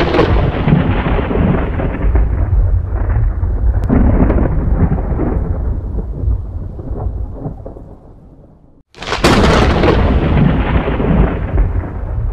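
Thunder sound effect: a long rolling rumble that slowly dies away over about eight seconds and breaks off, then a second loud thunderclap starts abruptly about nine seconds in.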